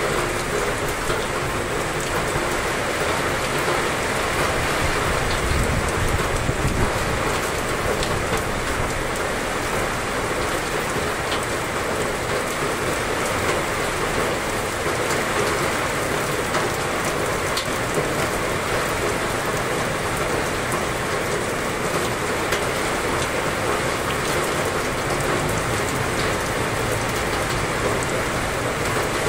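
Heavy rain pouring steadily, a dense even hiss, with a brief low rumble about six seconds in.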